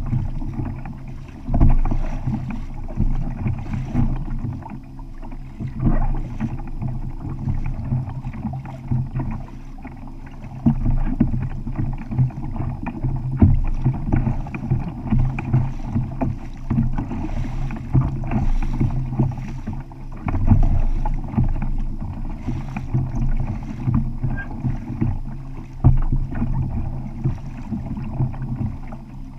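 Water sloshing and slapping against a kayak hull, muffled, with wind buffeting the microphone; the noise swells and dips unevenly and is dotted with irregular small knocks.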